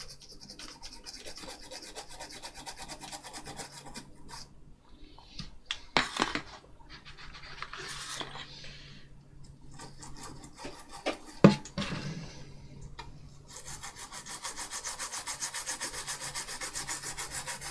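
Scrubbing on a circuit board to clean flux out of a freshly soldered LCD connector, a dry rubbing, rasping sound. It comes in irregular strokes with a couple of sharp taps, the loudest about halfway through, then settles into fast, even scrubbing in the last few seconds.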